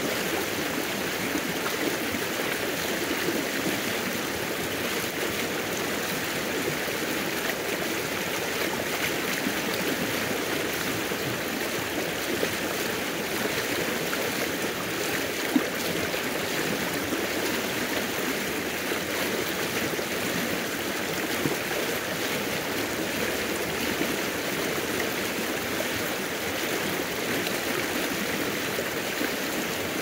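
Small forest river flowing: a steady, unbroken babbling rush of water.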